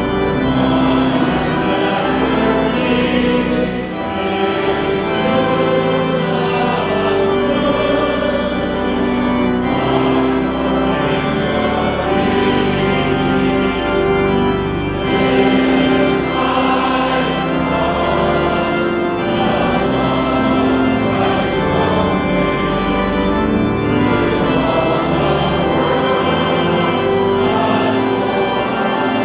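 Church organ playing held chords that change every second or two, hymn-like and unbroken.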